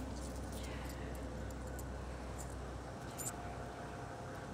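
A few faint metallic clinks of coins shifting in a palm, the clearest about three seconds in, over a steady low hum.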